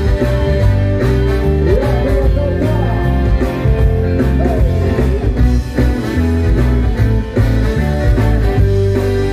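A live ska band playing loud amplified music: electric guitars, bass and drums, with a voice singing over it.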